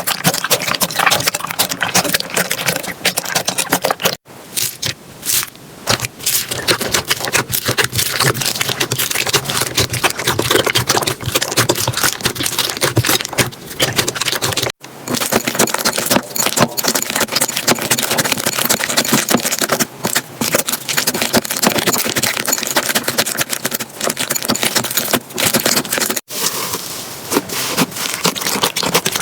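Slime being pressed and worked by hand, with dense crackling and popping clicks. The sound breaks off abruptly and starts again, as one clip gives way to the next, about 4, 15 and 26 seconds in.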